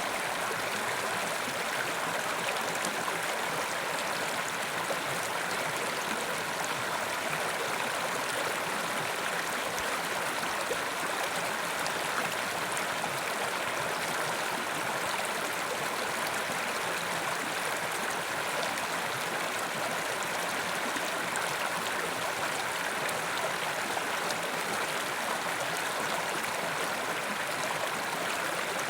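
Carpathian mountain river flowing over rocks: a steady, even rush of running water.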